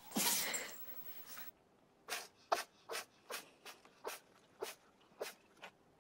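An animal sneezing: one loud sneeze at the start, then, from about two seconds in, a run of short quick sneezes, about two a second.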